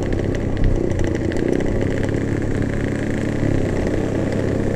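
Motorcycles cruising together at a steady speed: even engine and exhaust running from the camera bike and the Yamaha RX King two-stroke motorcycles riding just ahead.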